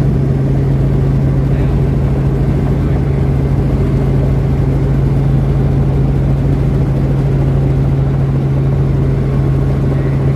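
Steady drone of a Robinson R44 helicopter's engine and rotors, heard inside the cabin, with a strong constant low hum as it descends toward a helipad.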